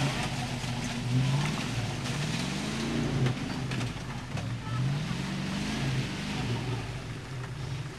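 Land Rover 101 Forward Control's 3.5-litre V8 engine pulling under load over rough ground, its revs climbing and dropping several times, with a few short knocks.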